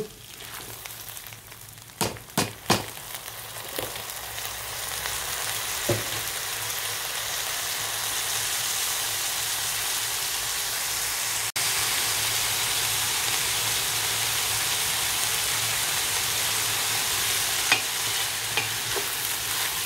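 Soaked basmati rice sizzling as it fries in hot fat in a pot, being toasted before the stock is added; the steady sizzle builds over the first several seconds and then holds. A few knocks and scrapes come early on as the rice is poured in and stirred with a wooden spoon.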